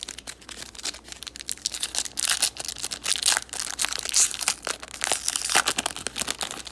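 Foil wrapper of a 2008 Upper Deck football card pack crinkling and tearing as hands rip it open: a quick run of crackles that grows louder partway through.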